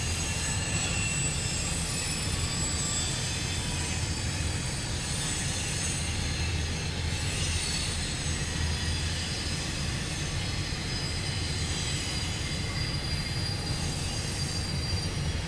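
Container cars of a CSX intermodal freight train rolling steadily past: a low rumble of wheels on rail with thin, high wheel squeals that fade after about halfway.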